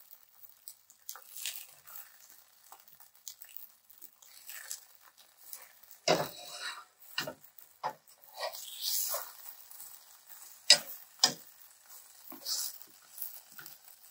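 A quesabirria taco frying in a pan with a light sizzle, while a utensil knocks and scrapes against the pan. The knocks come irregularly, more often in the second half, with the sharpest about three-quarters of the way through.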